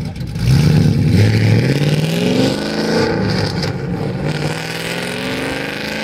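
Ford Mustang V8 with an aftermarket exhaust accelerating hard away. The exhaust note climbs in pitch, drops back at upshifts and fades as the car pulls into the distance.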